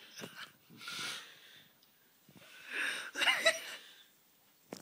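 A person's wheezy, breathy vocal sounds in two bursts: a short breath about a second in, then a longer wavering, partly voiced wheeze around three seconds in.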